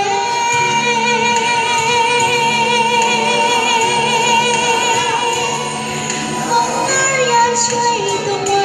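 A woman sings into a handheld microphone, amplified through a portable speaker, over a backing track. She holds one long note with vibrato for about five seconds, then moves down to lower notes.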